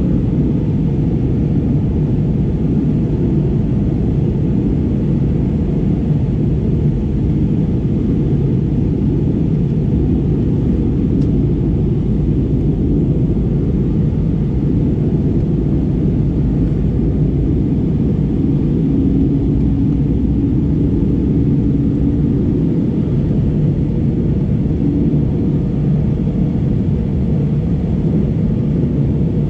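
Steady low roar of an Airbus A320neo in flight, its Pratt & Whitney PW1100G geared-turbofan engines and airflow heard from a window seat inside the cabin. A faint steady hum joins in about halfway through.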